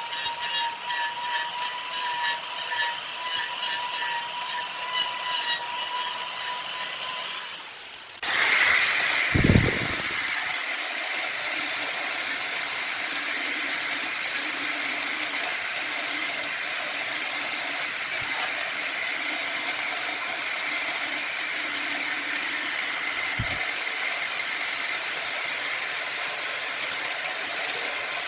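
Woodturning lathe running with a tool on the spinning workpiece, a steady whine with an even ticking rhythm that dies away about eight seconds in. A steady hiss follows, with one low thump shortly after it starts.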